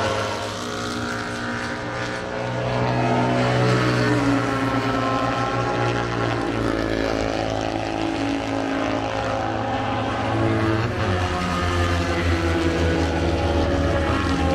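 Several racing motorcycles running hard on the circuit, their overlapping engine notes drifting up and down in pitch as the bikes pass and change speed.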